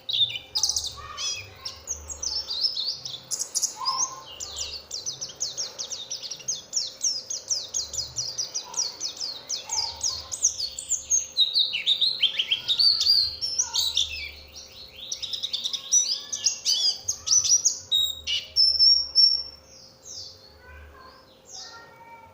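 A white-eye (pleci) sings a long, fast, high-pitched chattering song of quick trills and twitters, of the kind played as a lure to set other white-eyes singing. The song thins out to a few scattered notes near the end.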